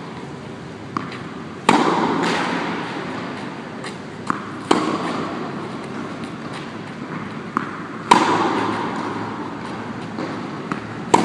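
Four tennis forehands struck, each a sharp pop of ball on racket strings about every three seconds, echoing in a reverberant hall. A lighter tap, the ball bouncing on the clay, comes about half a second before each hit.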